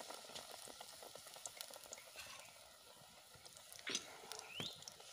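Batter-coated spinach leaf deep-frying in hot oil in an iron karahi: a faint, steady sizzle with many small crackles. A brief rising chirp sounds about four and a half seconds in.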